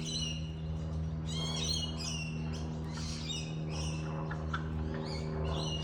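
Small birds chirping and twittering: many quick, high calls that fall in pitch, repeated throughout, over a steady low hum.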